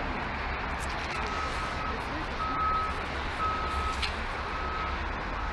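A series of short single-pitch electronic beeps, about half a second each and about one a second, starting about a second in, over the steady low rumble and hiss of a Metro rail car in motion.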